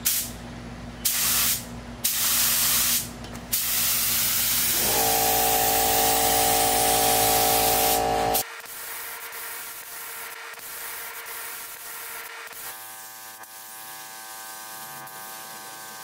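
Compressed-air gravity-feed paint spray gun hissing as it lays a light dust coat of enamel: three short bursts, then one long pull of about five seconds that cuts off about eight seconds in. Background music with long held chords comes in under the spraying and carries on after it.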